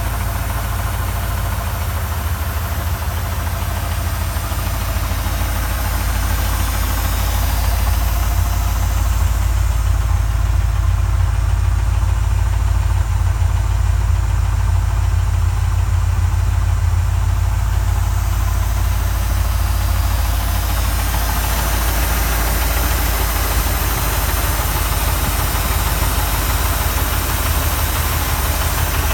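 1979 Ford Mustang Ghia's 5.0-litre (302) V8 idling, with a rapid, steady knock from the engine over its low drone.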